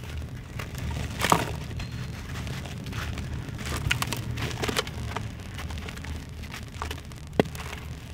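Dry, gritty chunk of sand cement broken and crumbled by hand: irregular crunching and cracking with grit falling, the loudest crack about a second in and a sharp snap near the end, over a steady low hum.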